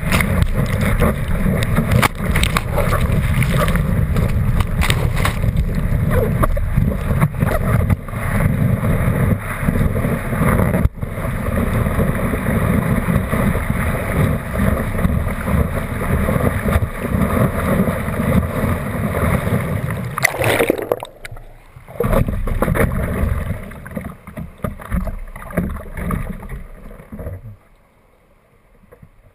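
Whitewater from a breaking wave churning over a surfboard, a loud continuous rush with water washing over the board-mounted camera's microphone. About twenty seconds in it drops away into uneven surges and splashes, and near the end only faint lapping water is left.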